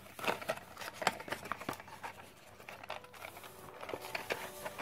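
Hands handling the cardboard box and plastic packaging of a trading-card structure deck: a run of light taps, clicks and rustles, thicker in the first couple of seconds and again near the end.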